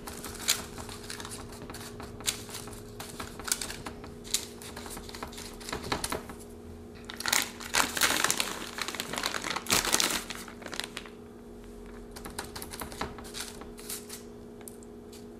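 Fingertips pressing and spreading shredded cheese and crushed Doritos on parchment paper over a metal baking sheet: irregular light taps and paper crinkles, busier around the middle. A faint steady hum runs underneath.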